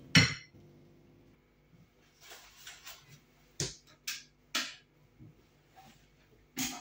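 A soft rustle about two seconds in, then a few sharp clicks or knocks: three about half a second apart in the middle and one more near the end, over a faint room hum.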